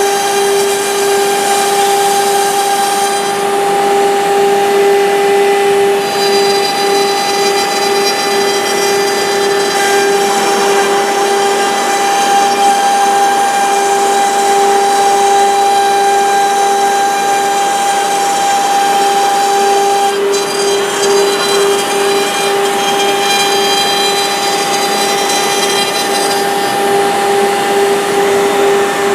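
Woodworking machine running with a steady, high-pitched whine that holds one pitch throughout, its upper tones shifting a few times, about 3, 6 and 20 seconds in.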